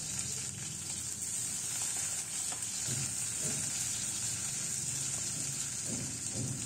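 Chopped onion sizzling in hot oil in a kadai, stirred with a metal spatula, with a few soft stirring sounds about halfway through and near the end.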